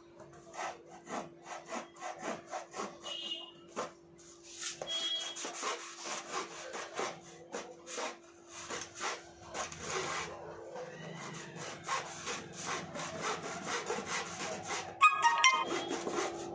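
A blade sawing back and forth through the cardboard tube of a sky-shot firework, in quick repeated scraping strokes of about three a second. A brief, louder squeak cuts in near the end.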